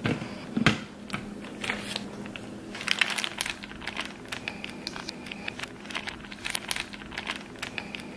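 Crinkling and rustling, with many small irregular crackles and clicks, over a faint steady hum.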